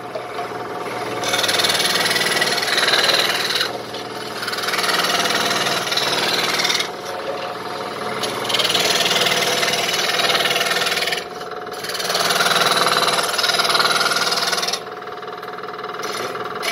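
Stationary YH 208 jigsaw machine running with a steady hum, its reciprocating blade cutting through stacked wood pieces. It gets louder in four stretches of about three seconds each while the blade is in the cut, and drops back to the machine's running sound between them.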